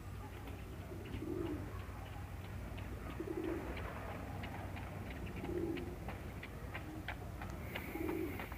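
Pigeon cooing: short, low, soft coos repeated about every two seconds.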